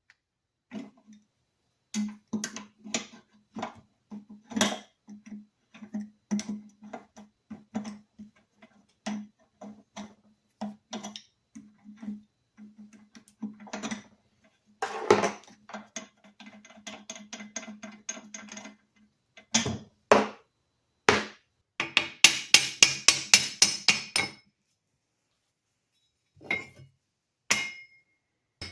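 Hammer blows on metal: irregular single taps with a short ring, then a quick run of rapid blows near the end.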